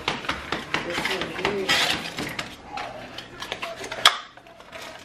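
Voices talking, mixed with many sharp clicks and clinks, with one loud click about four seconds in.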